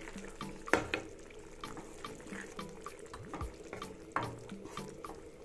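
Spatula stirring thick, simmering squid masala gravy in a non-stick pan: wet squelching and sloshing, with sharp knocks of the spatula against the pan, the loudest about three-quarters of a second in and again at about four seconds.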